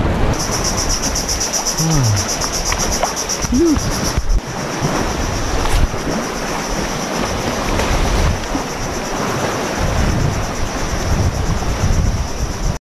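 Wind buffeting the microphone over the wash of sea water on the shore, with a steady, high-pitched pulsing buzz throughout.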